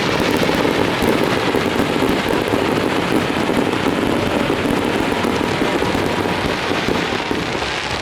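Fireworks display: a dense, continuous crackle of many bursting shells, easing slightly near the end.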